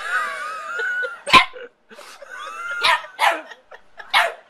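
A dog barking: a wavering, pitched whine in the first second, then four sharp barks over the next three seconds.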